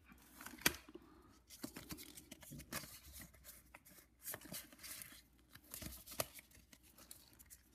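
Pokémon trading cards handled by hand: faint rustling and sharp ticks as the cards slide out of a foil booster pack and are slid through one by one.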